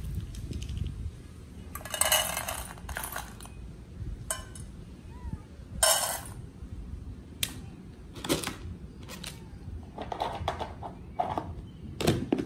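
Dry kibble poured into stainless steel pet bowls, rattling and clinking against the metal in several separate bursts.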